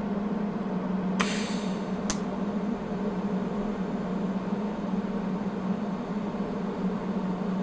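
TIG welder running with a steady buzz while metal is built up with filler wire. A short hiss comes about a second in and ends with a sharp click.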